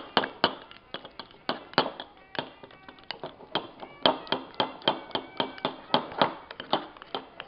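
A utensil clinking and tapping against a mixing bowl while stiff cake batter is stirred hard, in quick irregular strokes of about three to four a second.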